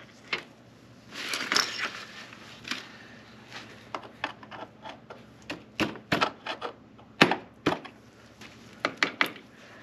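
Irregular clicks and light knocks of hand tools working the motorcycle's rear axle and chain adjuster, with a short scratchy rustle about a second in.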